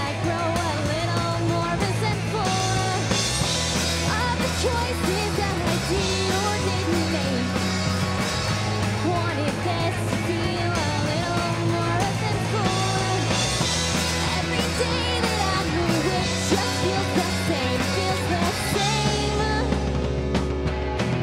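Live rock band playing: a woman singing over electric guitars, electric bass and a drum kit.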